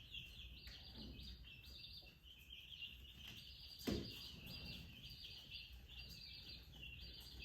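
Birds chirping steadily in repeated short buzzy phrases, with a single sharp knock about four seconds in.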